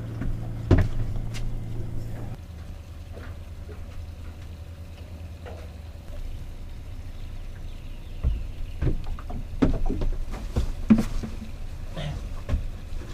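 A steady low machine hum, with scattered knocks and clunks from about eight seconds in.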